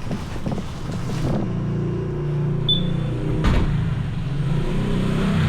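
A vehicle engine running steadily, with a single knock about three and a half seconds in.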